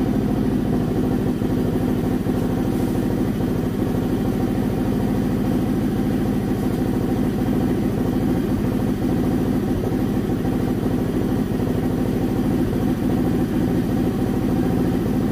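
ATV engine running steadily at an even speed.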